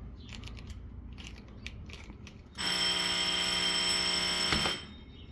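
Light clicking and handling, then about two and a half seconds in a fire alarm bell rings loudly for about two seconds and cuts off suddenly. It is set off by a pull station under test.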